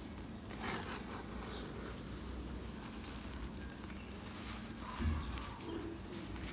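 A hand scooping and raking through dry, powdery red dirt: a gritty rustle of soil and small clods sifting and crumbling between the fingers, with a dull thump about five seconds in.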